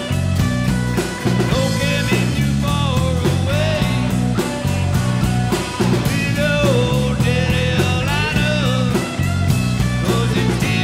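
Live rock band playing: electric guitars, bass and drum kit keep a steady rock groove, with a lead line of bending, wavering notes over it.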